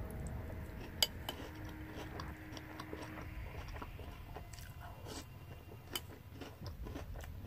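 Chewing a mouthful of French toast cereal, close to the microphone, with a few sharp clicks, the sharpest about a second in and near six seconds.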